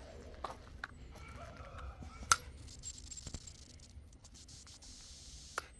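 A very high-pitched, steady electronic tone of the kind sold as an ultrasonic animal repellent, switching on with a click about two seconds in and cutting off suddenly near the end. A few faint clicks come before it.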